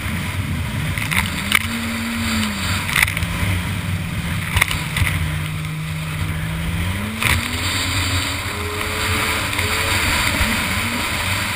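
2001 Yamaha GP1200R jet ski's two-stroke triple engine running under way, its pitch climbing and dropping with the throttle, over a steady rush of spray and wind. A few sharp slaps come as the hull hits the chop.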